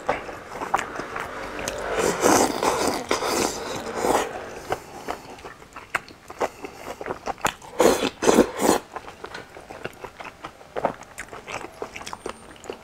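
Close-miked eating: wet chewing and mouth smacks of spicy hot-pot food, with louder stretches of slurping from a bowl of broth about two seconds in and again around eight seconds.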